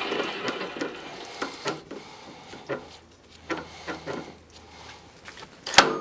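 Scattered metallic clicks and taps from a T-handle wrench being worked on the steel die head of a pipe threading machine, with one sharp, loud click near the end. A machine's running noise dies away in the first second.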